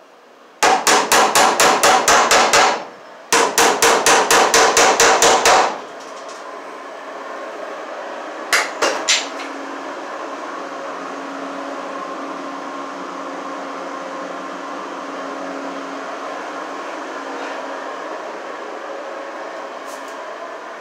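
Hammer striking fast, about five blows a second, in two runs of about ten blows each, then three lighter taps a few seconds later.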